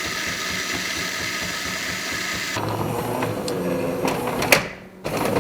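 Jura E8 super-automatic espresso machine starting a cappuccino: its built-in coffee grinder runs steadily for about two and a half seconds. Then the sound changes to a lower mechanical hum as it moves on toward brewing, with a sharp click near the end.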